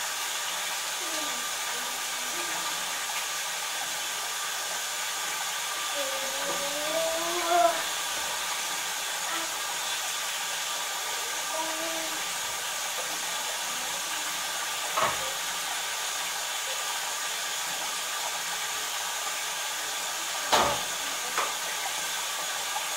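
Bath tap running into the tub, filling the bath with a steady rushing hiss. A faint voice is heard now and then, and two short knocks come, one about two-thirds of the way through and one near the end.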